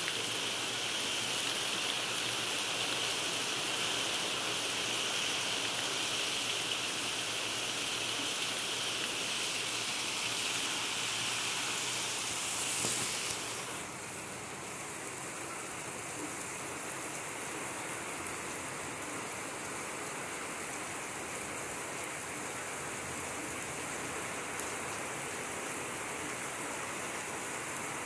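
Heavy rain falling steadily, a continuous hiss of rain on the ground. About halfway through the upper part of the hiss drops away abruptly, leaving the rain slightly quieter and duller, with a couple of faint ticks later on.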